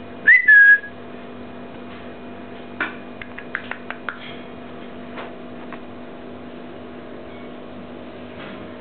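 Eclectus parrot giving one short whistled call that rises and then holds its pitch, just after the start. A few light clicks and taps follow a few seconds later, over a steady faint hum.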